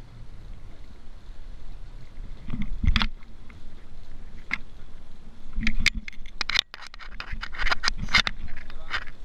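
Scrapes and knocks aboard a small fishing boat during a fight with a big fish, over a low steady rumble: one loud knock about three seconds in, then a quick run of scrapes and knocks through the second half.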